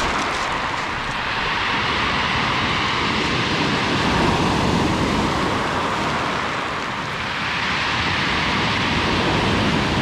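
Black Sea surf breaking and washing up a pebble beach, a steady rush that swells twice, once around the middle and again near the end.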